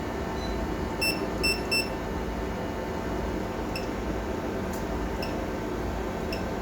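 Three short electronic key beeps in quick succession about a second in, then a few fainter single beeps, from the keypad of a marine AIS unit being programmed. A steady machinery hum runs underneath.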